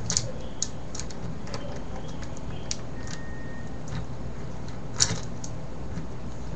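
Small plastic clicks and taps of Rubik's 4x4 cube pieces being handled and fitted together, scattered and irregular, the sharpest about five seconds in, over a steady low hum.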